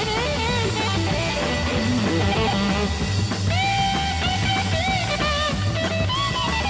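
Rock music: a lead guitar line with bending, sliding notes over bass and drums.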